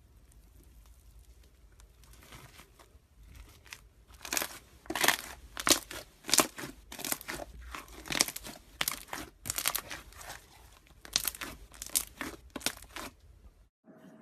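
Slime being handled and squeezed, making a run of short, sharp crackles about twice a second. The crackles begin a few seconds in and cut off abruptly near the end.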